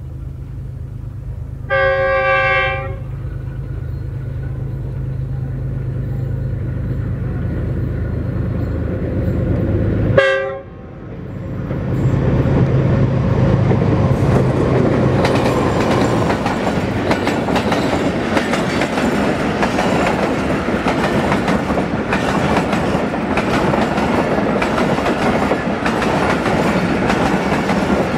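Pakistan Railways diesel locomotive approaching with a steady low engine drone. It sounds a horn once, for about a second, near the start. After a sudden break and a very short horn note about ten seconds in, the noise of a passenger train builds and becomes a dense clatter of wheels over rail joints as the coaches pass close by at speed.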